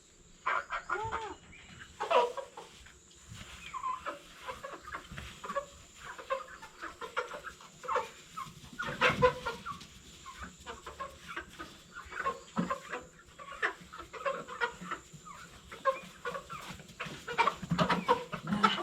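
A flock of young chickens clucking and squawking in many short calls, alarmed as they are chased and caught by hand. A louder burst comes about nine seconds in.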